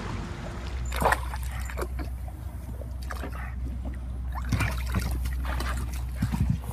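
Water splashing and sloshing in a plastic paddling pool as a boxer dog dips its muzzle and paws into it, with sharper splashes about a second in and again near the end.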